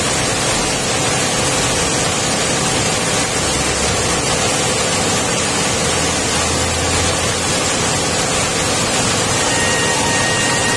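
Coffee milling machine running with a loud, steady, rushing whir.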